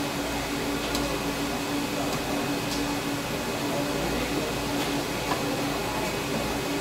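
Steady low hum and background noise, with a few faint taps of a sashimi knife on a wooden cutting board as fish is sliced.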